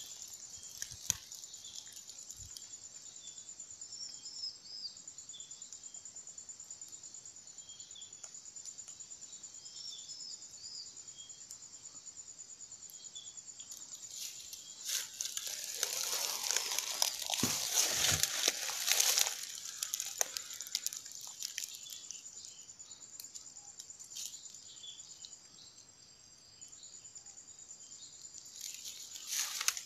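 Steady high-pitched drone of insects in tropical brush, with faint short chirps now and then. A louder stretch of rustling comes in about halfway through and fades after a few seconds.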